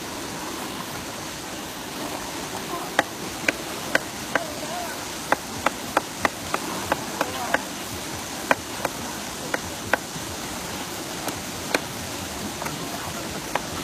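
A series of about twenty sharp knocks, irregular and sometimes in quick succession, over a steady outdoor hiss.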